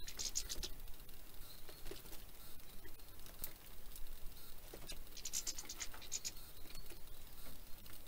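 Small songbirds at an aviary seed tray: two quick runs of short, high twittering chirps, one at the start and one about five seconds in, over light tapping and scratching as birds hop and peck at the seed.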